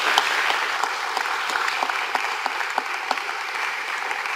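Congregation clapping steadily, a dense patter of many hands.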